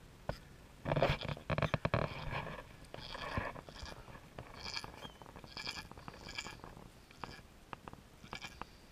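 Goats bleating just after a doe has given birth to twin kids: one loud, low call about a second in, then several short, fainter, higher calls.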